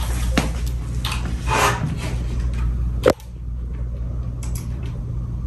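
Steady low room hum with a few light clicks from computer keyboard typing, a brief rustle, and one sharp knock about three seconds in.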